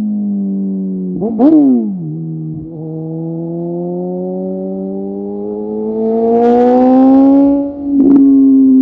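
Suzuki sport motorcycle engine under way: a quick rise and fall in revs about a second in, then the engine pulls steadily higher with wind rush building, and a brief break with a sharp crack near the end before it runs on.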